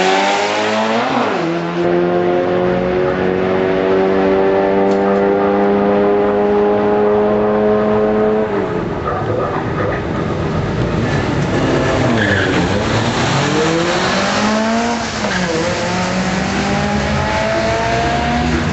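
Road cars drag racing, their engines revving hard under full acceleration. The pitch climbs steadily for several seconds, then drops sharply at the gear changes and climbs again.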